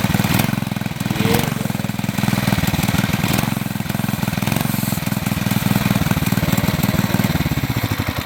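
Small gas engine of a homemade mini chopper running close by, a loud steady exhaust note holding an even speed.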